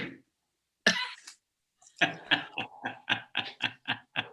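A man coughing: a sharp cough, a second one about a second later, then a quick run of about ten short coughs.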